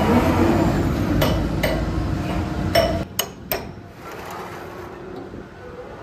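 Heavy construction machinery running with a low engine rumble, struck by about five sharp, ringing metal-on-metal clanks. The rumble eases off about three seconds in.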